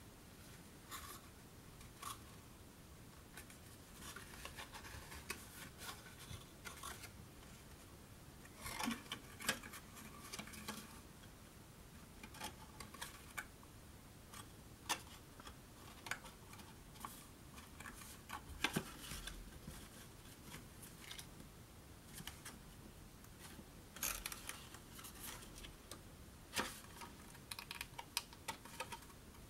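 Faint rustling, rubbing and light clicks of cardstock being folded and pressed together by hand while the glued base of a paper box is set. There are scattered small clicks, with a few louder rustles around 9 seconds and 24 seconds in.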